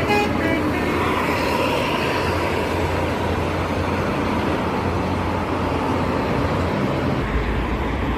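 Heavy toll-road traffic with buses passing at speed: a steady rush of engines and tyres. It opens with the last notes of a multi-tone telolet bus horn, which stop about half a second in, and a deeper rumble comes in near the end as a heavy vehicle passes close.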